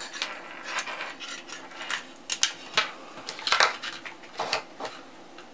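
Hands handling the wires, connector plugs and plastic case of a home-made battery pack: irregular light clicks and knocks, with a cluster of sharper taps in the middle.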